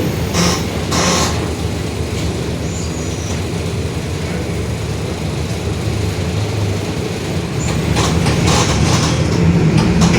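Inside a Mercedes-Benz OF-1721 city bus under way: a steady low drone from the diesel engine and drivetrain, with the differential growling. Short rattling clatters come about half a second and a second in, and again near the end, where the drone grows louder.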